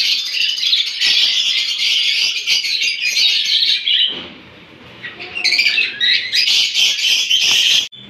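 Caged parrots screeching and chattering in a loud, harsh, continuous din, which drops away about four seconds in, starts again a second and a half later, and cuts off sharply near the end.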